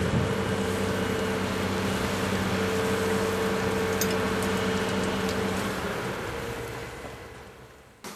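Diesel engine of a high-reach demolition excavator running steadily, a low hum with a higher droning tone that comes and goes, over a broad rushing noise with a few sharp clicks. The sound fades out over the last two seconds.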